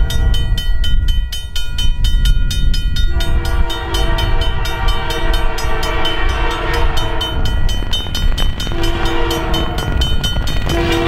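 A railroad crossing bell dings in a steady, even rhythm while the approaching Canadian Pacific GP20C-ECO diesel locomotive sounds its air horn for the crossing. The horn starts about three seconds in and breaks off briefly twice, over a low rumble from the train.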